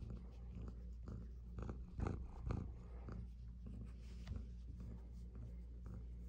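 Adult domestic cat purring steadily while being stroked, with soft brushing and rustling of a hand on fur and the carrier, a little louder about two seconds in.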